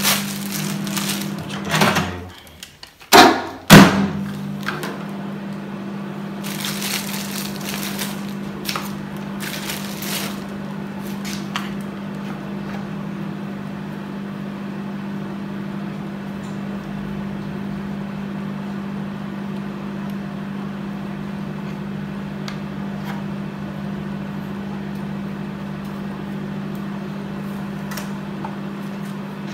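Table knife scraping margarine across slices of bread, over a steady low hum from a kitchen appliance. A few loud knocks come in the first few seconds.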